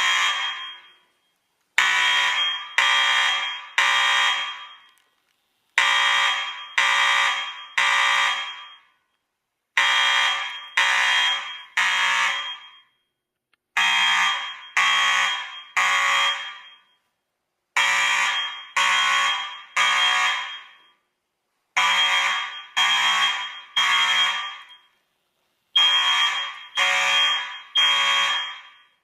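Fire alarm sounding the temporal-three evacuation pattern after a manual pull station was pulled. It gives three short blasts about a second apart, then a pause, and the group repeats every four seconds.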